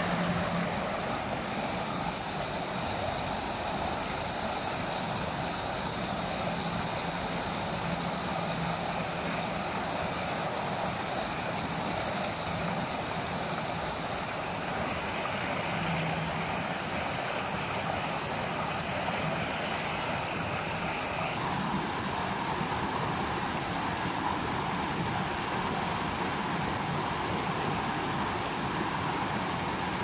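Steady rush of flowing water, its tone shifting slightly about 21 seconds in.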